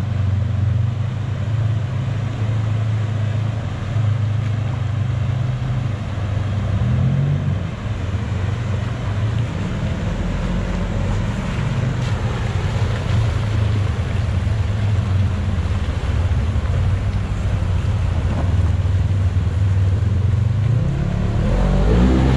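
Side-by-side UTV engines running as they crawl through a shallow rocky creek, over the rush of water spilling across rock ledges. Near the end an engine revs up as a Polaris RZR splashes through the water close by.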